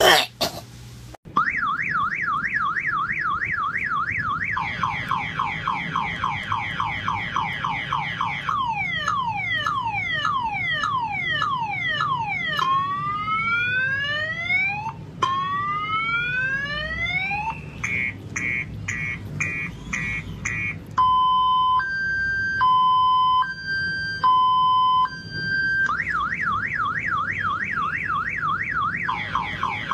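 Electronic car alarm siren cycling through its tone patterns. It starts about a second in with a fast warble, then plays a slower warble, a run of falling sweeps, a run of rising sweeps, quick beeps, and a two-tone high-low alternation. Near the end it returns to the fast warble.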